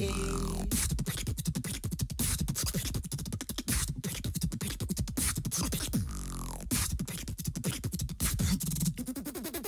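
Music with no lyrics: a fast, stuttering beat of drum hits and chopped vocal-like sounds, with a falling swoosh near the start and again about six seconds in.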